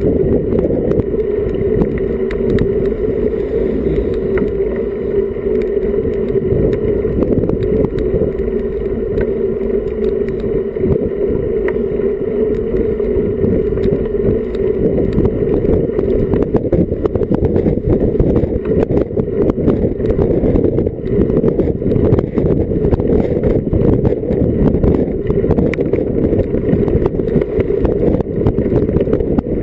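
Wind rumbling over a Garmin VIRB action camera's microphone as it rides on a road bicycle. The rumble is steady and loud, with more frequent crackling buffets from about halfway on.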